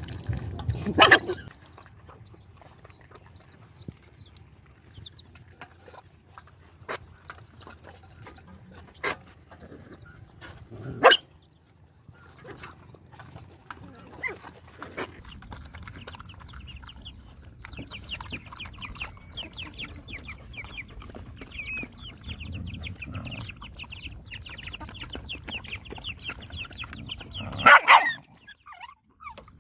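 Several dogs eating together from one basin, chewing and slurping, with a few sudden loud snaps. Near the end there is a brief loud snarl as they jostle at the bowl. A faint, rapid, high chirping runs through the second half.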